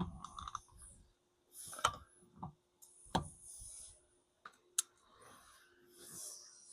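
Scattered sharp clicks and light knocks of a screwdriver and plastic wheel trim being handled, the two loudest a little under 2 s and about 3 s in.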